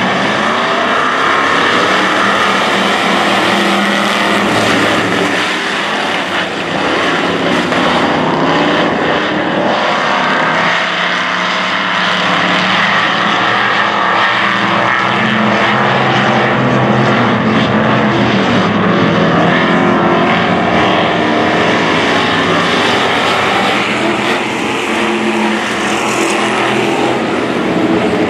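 A pack of dirt-track stock cars racing, their engines running together in a loud, steady drone.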